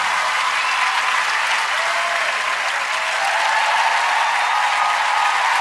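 Large studio audience applauding: a steady, loud wash of clapping.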